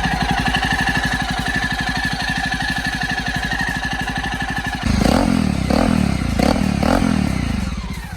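A Jawa motorcycle's single-cylinder engine idles with an even, rapid pulse just after starting. From about five seconds in it is revved in several quick blips. The timing-chain tensioner has just been replaced, and the owner finds the engine noise reduced, with the exhaust note heard more clearly.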